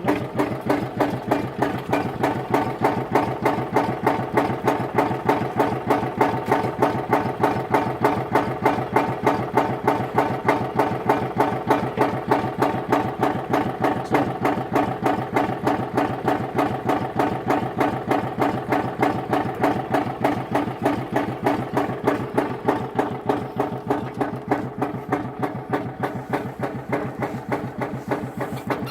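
Engine idling steadily, with an even, fast pulsing beat.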